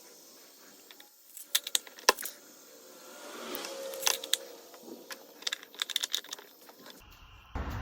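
Light clicks and rattles of an engine oil dipstick being drawn out of its tube and handled, in two short clusters of sharp ticks.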